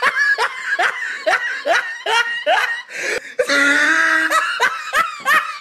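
A girl giggling in a quick run of short, high-pitched laughs, about two or three a second, with a longer breathy stretch of laughter a little after the middle.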